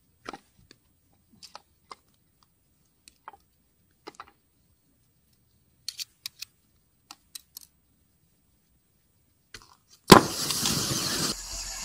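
A knife-punctured DJI Phantom 4 Pro lithium-polymer drone battery: scattered small clicks and crackles, then a sudden loud burst about ten seconds in, followed by about a second of rushing hiss as the pack vents.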